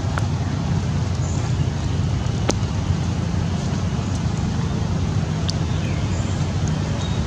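Steady low outdoor rumble with a hiss over it, broken by a few faint sharp ticks.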